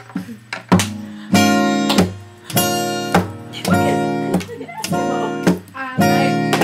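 Acoustic guitar strummed, a chord struck about every half-second to second and left ringing between strokes.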